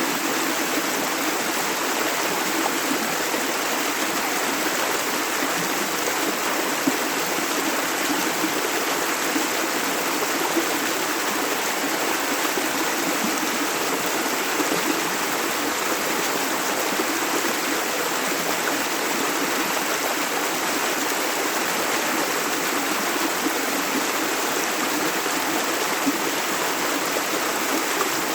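A shallow river running steadily over stones, a continuous rushing with small gurgles and splashes.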